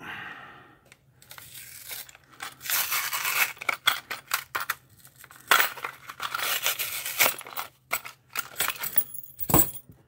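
Cardboard-and-plastic padlock packaging being torn and peeled open by hand, rustling and crinkling in bursts, with a few sharp clicks and one louder knock near the end.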